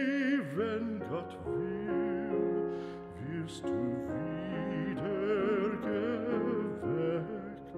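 Background music: an operatic singer with strong vibrato, over sustained instrumental accompaniment.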